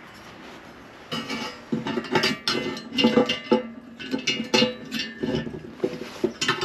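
The steel bender plate and its coil springs clanking and rattling against the welded steel frame of a DIY press brake as they are fitted, in a run of irregular ringing metal knocks starting about a second in.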